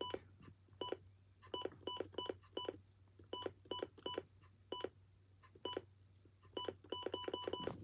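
Buttons pressed one after another on an electronic unit's keypad, each press a click with a short high key beep, about eighteen presses in an uneven rhythm with a quick run near the end, as the date is entered.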